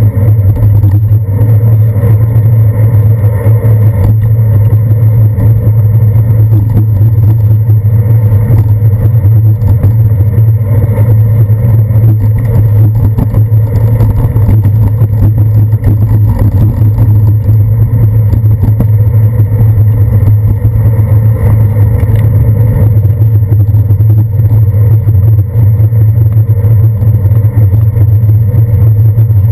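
Steady, loud low rumble of a bicycle rolling over wet city pavement, heard through a handlebar-mounted action camera in its case: road vibration carried up through the handlebars. A faint thin high whine runs underneath.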